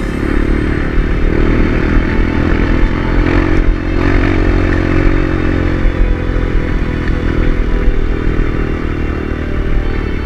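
Kawasaki KLX150 dirt bike's single-cylinder four-stroke engine running steadily while the bike is ridden.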